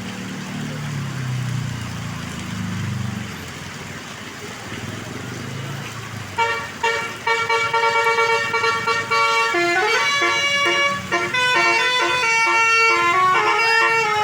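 A bus engine rumbling low, then about six seconds in a bus's basuri 'telolet' musical air horn starts playing a melody of loud held multi-tone notes that change pitch again and again.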